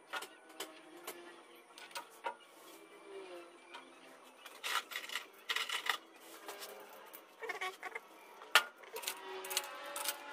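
Scattered light metal clinks and clicks as bearing caps are handled and set onto the crankshaft of a Mitsubishi 4D56 diesel engine block, with one sharper click about eight seconds in.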